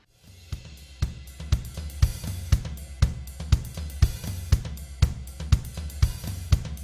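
Background music with a steady drum-kit beat, about two beats a second, with cymbals and hi-hat.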